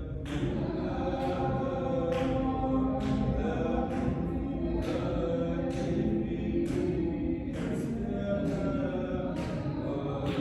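Sufi dhikr chanting by a group in unison: a sustained sung melody cut by a sharp, breathy accented syllable about once a second, keeping a steady rhythm.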